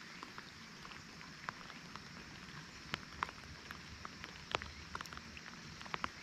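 Irregular light ticks and taps over a steady hiss, with a few sharper clicks about three seconds and four and a half seconds in.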